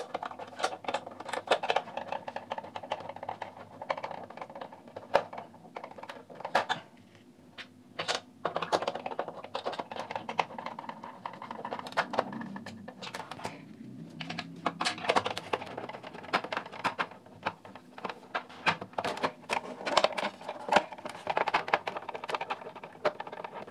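Hard plastic casing parts of a Philips RM210 cassette recorder being handled and fitted together by hand: many irregular sharp clicks and taps of plastic on plastic, with rubbing and shuffling between them.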